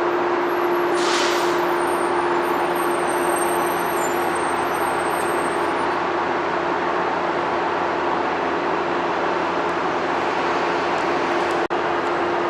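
Train in the station: a steady loud hum carrying one held tone, with thin high-pitched squeals over the first half and a short hiss about a second in.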